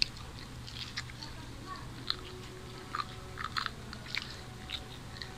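Close-up eating sounds of people biting and chewing fried moghlai paratha: soft, irregular crunches and mouth clicks, several times a second, over a low steady hum.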